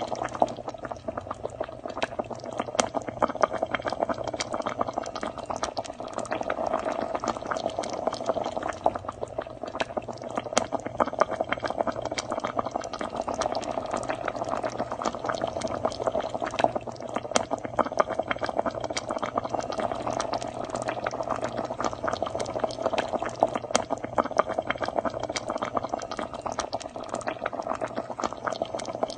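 Fish stew boiling hard in a pot: a steady, dense bubbling made of many small pops.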